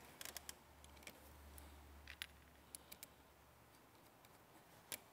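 Near silence broken by a few faint, sharp clicks and ticks of small metal hardware being handled at a battery-terminal fuse block, over a faint low hum.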